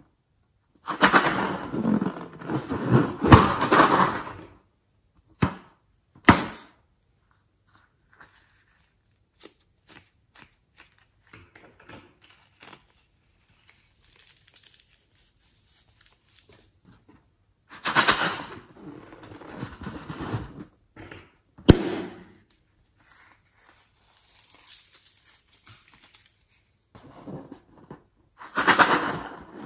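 Hands squeezing and squishing a rubber balloon and wet slime in a glass bowl: three long noisy bursts of handling, with a few sharp clicks between and faint fiddling noises in the quieter stretches.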